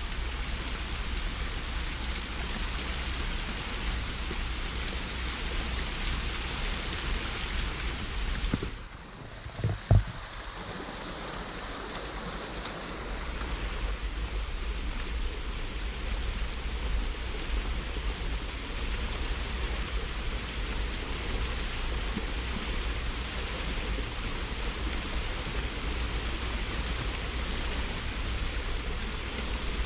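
Small waterfall and its mountain stream rushing steadily over rock. About nine seconds in, the sound drops away for a few seconds, with one loud thump near ten seconds.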